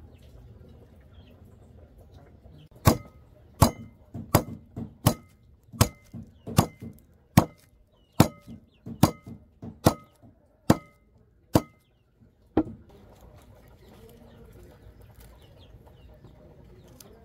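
A run of sharp knocks on wood, about two a second, each with a short ringing tone, starting about three seconds in and stopping about ten seconds later: a tool striking a board or wooden vessel as seasoning is prepared.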